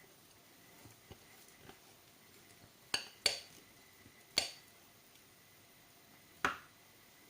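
Kitchen utensils clinking against dishes: four sharp clinks with a brief ring, the first two close together, then two more spread over the next few seconds.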